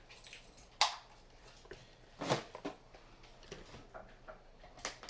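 Light handling noises of a smartphone and its charging cable being moved on a surface: a few short clicks and knocks, three of them louder, about a second in, a little over two seconds in and near the end.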